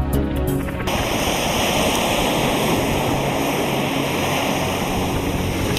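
Background music cuts off about a second in, giving way to a steady rush of seawater and spray along a moving boat.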